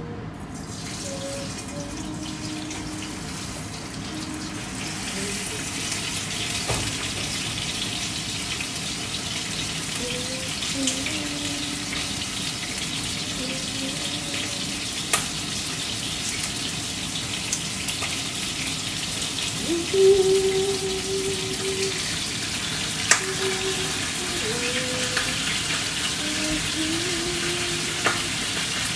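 A whole fish frying in oil in a frying pan. The steady sizzle builds over the first few seconds and then holds, with a few sharp pops of spitting oil.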